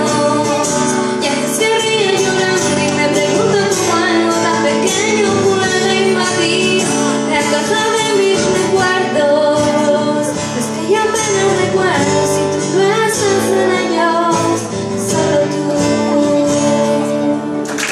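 A woman singing a slow song into a microphone, accompanied by an acoustic guitar.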